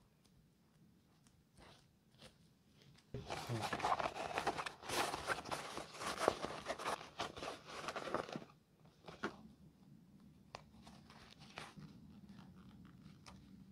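Fendi logo-canvas pouch and its new leather lining being pushed, squeezed and rustled by hand, a dense crinkling and crackling that starts about three seconds in and lasts about five seconds. After that come softer handling rustles and a few small clicks.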